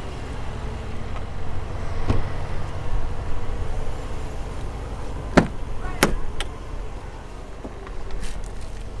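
Sharp clicks and knocks of someone climbing into a car's driver seat and handling the door and cabin, the loudest pair a little past halfway, over a steady low rumble.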